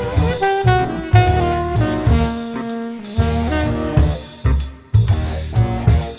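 Background jazz music with saxophone melody over a steady bass and drum beat.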